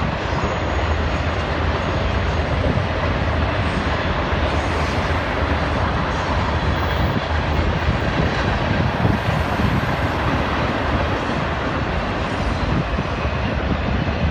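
Freight train of autorack cars rolling past, a steady rumble of wheels on rail.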